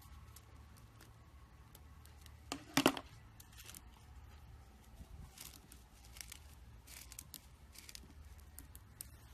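Slime being handled, giving scattered small clicks and crackles, with one louder crackling burst about three seconds in, over a steady low hum.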